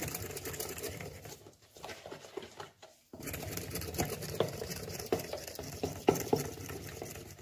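Hand whisk beating cake batter in a plastic bowl: rapid, steady scraping and tapping strokes as flour is worked into the wet batter. It pauses briefly about one and a half and three seconds in.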